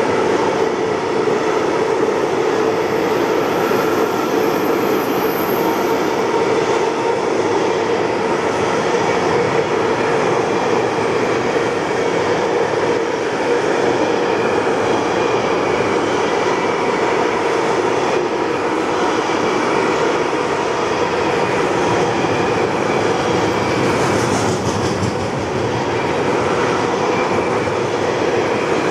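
Container wagons of a long freight train rolling past close by: a steady, loud rumble of steel wheels on the rails with a continuous hum, unchanging as wagon after wagon goes by.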